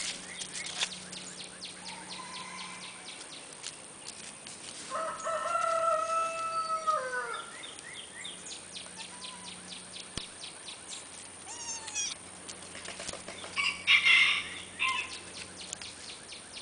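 Farmyard animal calls. There is one long, steady call of about two and a half seconds that drops away at its end, a few short calls on either side of it, and a brief loud noisy burst near the end.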